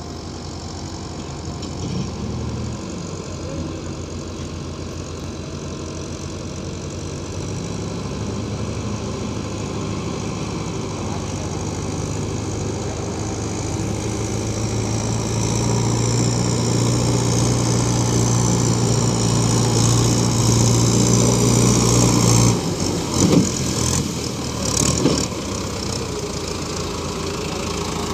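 Mahindra 475 DI tractor's diesel engine running as it wades through a shallow river, with water churning around the wheels, growing louder as it approaches. Its steady drone drops off suddenly about three-quarters of the way through, followed by a few knocks.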